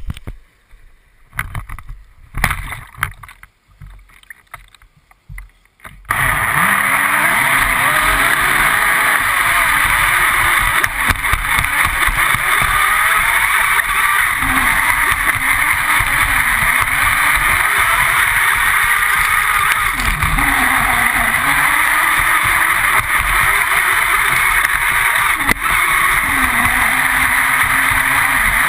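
Onboard sound of a radio-controlled speedboat under way: a loud, steady rush of water and wind over the hull, with a motor whine that rises and falls in pitch as the throttle changes. It starts abruptly about six seconds in, after a few seconds of scattered splashes and knocks.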